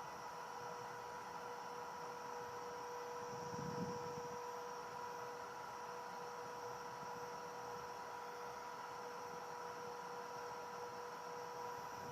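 CNC router for cutting advertising materials running with a steady, even whine, its pitch unchanging.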